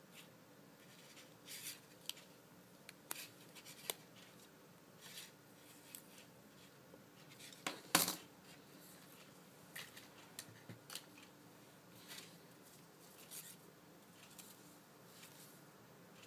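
Soft paper rustling and crinkling as a red paper layer is peeled away from a delicate white cut-paper design, made of scattered short scratchy crackles with one louder crackle about halfway through.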